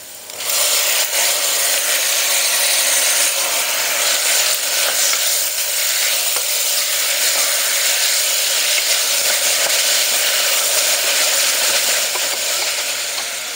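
Chopped tomatoes sizzle up sharply in hot oil and fried onions in a pressure cooker about half a second in, then keep sizzling and crackling steadily while a spatula stirs them.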